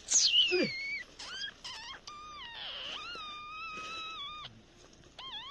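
High-pitched animal calls: a loud, sharp falling cry at the start, then a few short calls and one long, steady call lasting about two and a half seconds.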